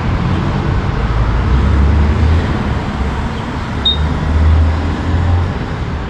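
Steady low rumble of road traffic and vehicles around a gas station forecourt. One short high beep sounds about four seconds in as a button on the fuel pump is pressed.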